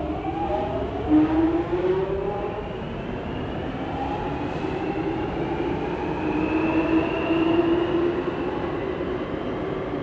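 London Underground Jubilee line train (1996 Stock) accelerating: its traction motors give a whine of several tones that rises slowly in pitch, over the rumble of the wheels on the rails.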